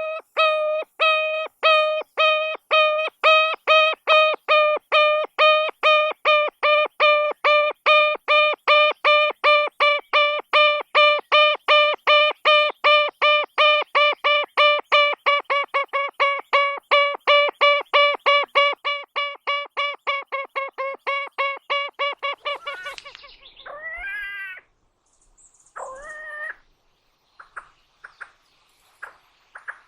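A bird giving a long series of short, pitched call notes, about two to three a second, gradually speeding up and fading away after about twenty seconds. Near the end come a few single calls that rise in pitch.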